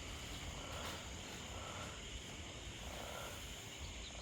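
A brood of five-day-old chicks peeping as a steady chorus, with wind rumbling on the microphone.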